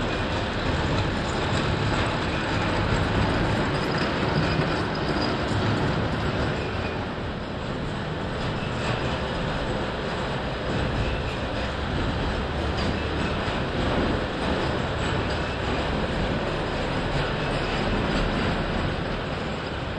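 1925 Märklin tinplate O-gauge toy trains running on tinplate track: a steady clattering rattle of wheels and wagons on the rails.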